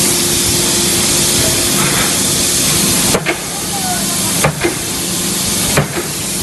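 Forging hammer striking three times, about 1.3 seconds apart, over a loud steady hiss and a low hum.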